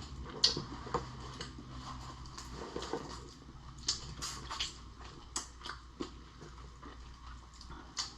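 Chewing of cooked shrimp eaten shell and all, close to the microphone, with irregular sharp crunches and wet crackles.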